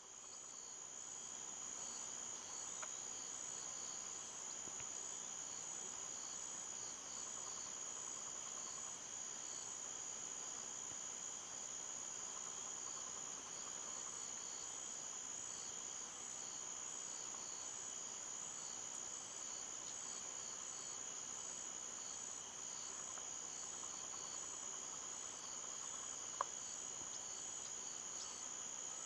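Steady chorus of insects: a continuous high-pitched trill with a regular pulsing chirp over it. One sharp click near the end.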